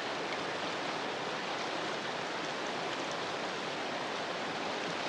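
Steady rainfall: an even hiss of rain with a few faint drop ticks scattered through it.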